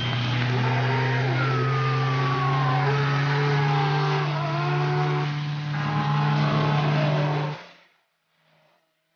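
Rally car engine heard from inside the cabin, running hard at a nearly steady pitch, with fainter whining tones sliding down and up in pitch over it. The sound cuts off abruptly near the end.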